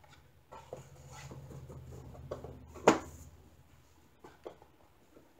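Hands fitting a cardboard backing board into a wooden picture frame: light taps and handling noises, with one sharp click just before three seconds in as the board goes down into the frame.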